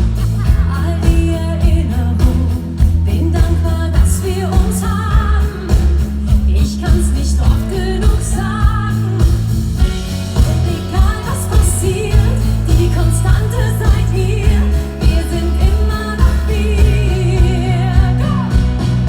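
Live pop song played loud by a band with a singer: a steady beat, heavy bass, and a voice holding wavering sung notes.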